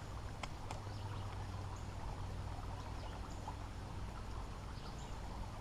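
Creek water running steadily, with a few faint small ticks.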